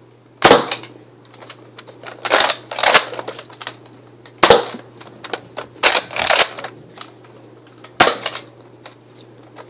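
Nerf Retaliator, a spring-powered foam-dart blaster, being primed and fired several times: a run of sharp plastic clacks and thunks, the loudest about half a second in, about four and a half seconds in and near the end, with smaller clacks between.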